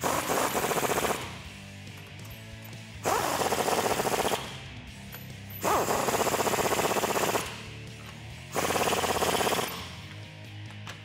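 Impact wrench with a 22 mm socket hammering U-bolt nuts tight on a leaf-spring axle, in four bursts of rapid hammering of a second or so each, a few seconds apart. The nuts are run down one after another in an X pattern to clamp the lift block evenly. Background music plays underneath.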